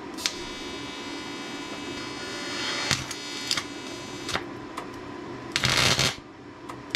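TIG welding arc buzzing steadily for about five seconds while a brake foot-control part is tacked, with a few sharp crackles, then cutting off; a short loud hiss follows near the end.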